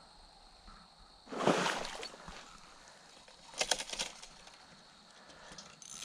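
Brush and twigs rustling and crackling under footsteps pushing through undergrowth, in three short bursts; the first, about a second in, is the loudest.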